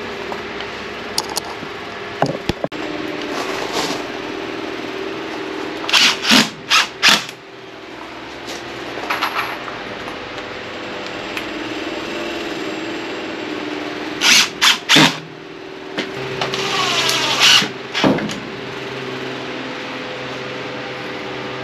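Cordless DeWalt drill driving screws into wood in short bursts: three quick bursts about six seconds in, three more around fourteen seconds, then a longer run near seventeen seconds. A steady low hum runs underneath.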